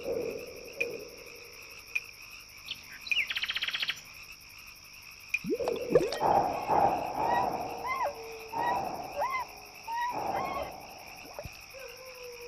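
Animal-like calls from an animated film's sound design. A rapid buzzing trill comes a few seconds in. Later comes a run of short croaking calls, several ending in a rising, hooked chirp, about two a second, over a steady low hum.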